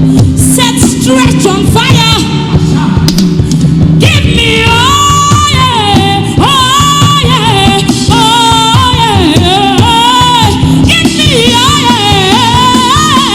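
Gospel worship music: a woman singing long, gliding, ornamented lines over a full band accompaniment. The voice lines grow prominent about four seconds in.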